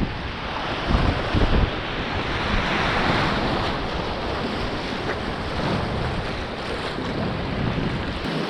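Steady rush of river water around a kayak, with wind buffeting the microphone in low gusts about a second in.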